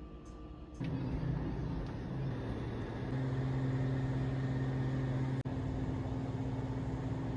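A car running at driving speed, its engine hum and road noise steady after a slight rise in pitch. The sound jumps up abruptly about a second in and cuts out for an instant about two-thirds of the way through.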